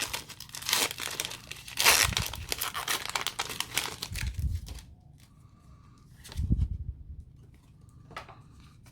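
Foil wrapper of a Pokémon trading card booster pack being torn open and crinkled by hand, with the tearing loudest about two seconds in and stopping about five seconds in. A single soft thump follows near the end.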